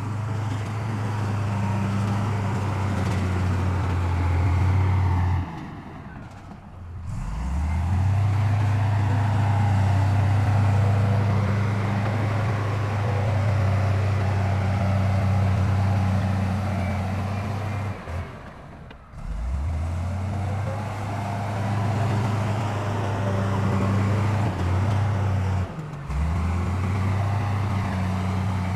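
Heavy diesel engine of earthmoving machinery running steadily under load, with a deep hum. The hum drops away briefly three times and comes back each time.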